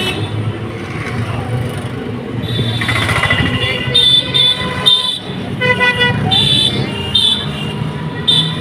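Road traffic with engines running, and several short horn toots from about halfway through.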